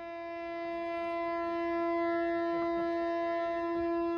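A boat horn sounding one long, steady blast that swells in loudness as it goes.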